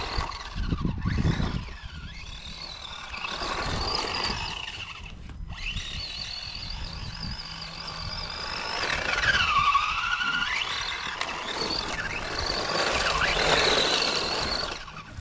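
Kyosho Lazer Alpha electric RC buggy's motor and drivetrain whining, the pitch rising and falling with the throttle and dropping sharply once near the middle before climbing again, over the crunch of its tyres on gravel.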